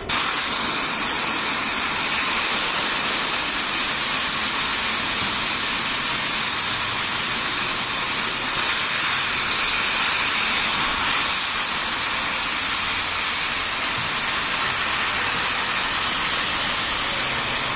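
Pressurised nitrogen hissing out of a car's AC system through the opened high-side valve of an AC service machine, a loud, steady hiss. The test pressure is being vented after a leak test that the system passed.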